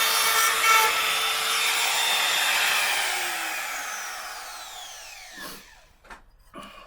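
Makita 3711 trim router running at speed, then switched off: its high whine falls in pitch and fades over about four seconds as the motor spins down. A few light knocks come near the end.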